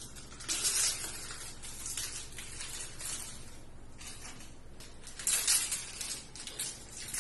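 Hands crinkling and rustling a gauze wrapper in irregular hissy rustles, loudest about half a second in and again around five seconds in, over a faint steady low hum.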